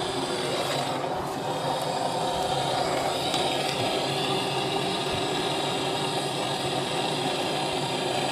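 Handheld gas blowtorch running with a steady, unbroken flame noise.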